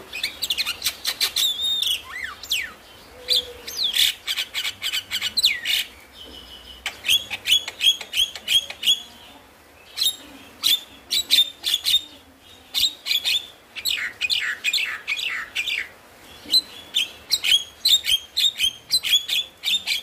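Javan myna singing a rapid, chattering song of sharp clicks and short whistled notes, some sliding up or down in pitch, in bursts broken by brief pauses.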